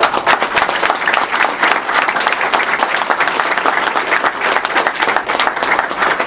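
Large audience applauding, breaking out all at once and keeping up steadily.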